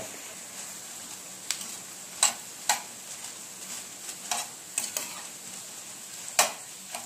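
Dry red chillies frying in a little oil in a small pan, with a steady sizzle. A steel spoon scrapes and clinks against the pan several times as they are stirred.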